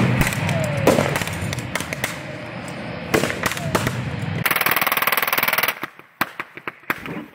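Simulated gunfire in a mock battle: a run of sharp shots and cracks, then a dense, rapid machine-gun-like burst about four and a half seconds in that cuts off abruptly about a second later.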